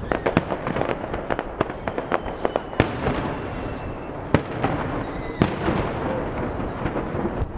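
Aerial firework shells bursting: an irregular, rapid series of sharp bangs and crackles, with a few louder booms standing out among them.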